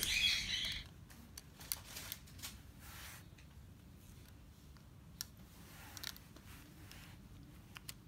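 Faint, scattered clicks and taps as a pair of eyeglasses is handled and bitten by a ring-necked parakeet, after a brief harsh rasp right at the start.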